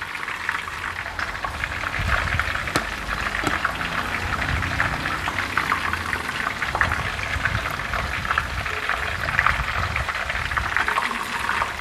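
Battered shrimp frying in a shallow pan of hot oil: a steady crackling sizzle.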